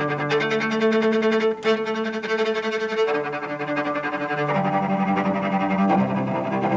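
Cello played with fast bounced bow strokes launched from the string: rapid repeated short notes, the pitch moving to a new note about every second and a half.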